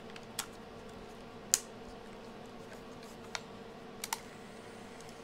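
A handful of short, sharp plastic clicks from batteries being fitted into a Sanyo MGP-44 Walkman, heard over a faint steady hum. One click a little over a second in is the loudest, and two come close together near the end.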